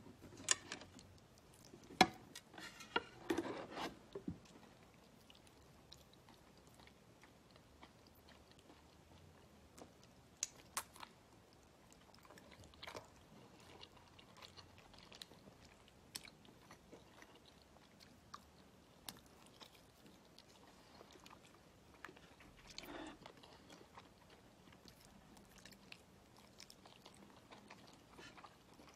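Quiet mouth sounds of someone biting and chewing cooked octopus, made up of scattered short clicks. The clicks are bunched louder in the first few seconds, with a few more scattered later.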